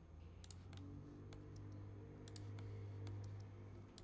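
Faint, scattered computer mouse and keyboard clicks, some in quick pairs, over a low steady hum.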